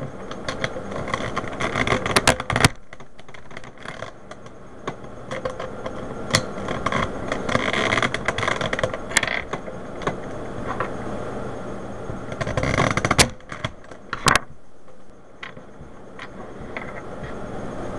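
Loose plastic Rubik's Cube pieces being handled and fitted into a partly reassembled cube: hard plastic rattling and scraping, with several sharp clicks as pieces are pushed into place.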